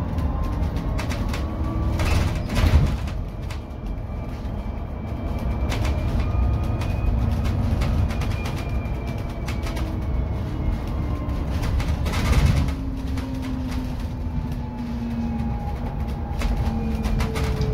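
Inside a BYD K9U electric bus on the move: the electric drive's whine glides up and down in pitch as the bus speeds up and slows, over a steady rumble of tyres and road. Two louder knocks stand out, about two and a half seconds in and again about twelve seconds in.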